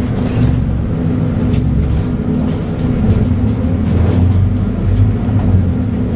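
Scania DC9 9-litre six-cylinder diesel of a Scania K94UB bus running steadily under way, heard from inside the bus, with a few faint clicks.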